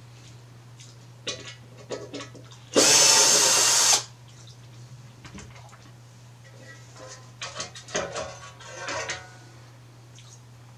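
A 12-volt cordless drill-driver runs for a little over a second, backing a screw out of a blower's sheet-metal fan cover, with a few clicks of handling before it. Later, a cluster of knocks and rattles as the drill is set down and the metal cover is worked off.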